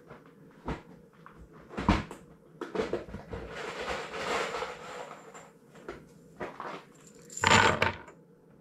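Knocks and clatter of wooden boards and tools being handled during door assembly, with a few sharp knocks early on, a longer scraping, rustling stretch in the middle, and one loud clattering burst near the end.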